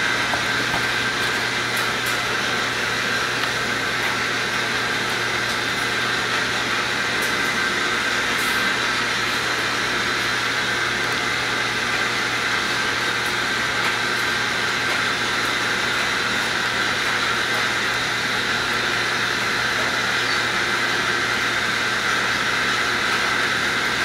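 Steady machine-like whirring noise with a low hum and a few faint high whining tones, unchanging in level.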